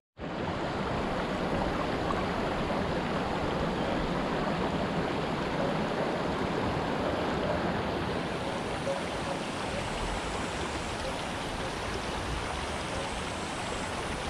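Shallow stream water rushing steadily over cobbles and stones in a riffle.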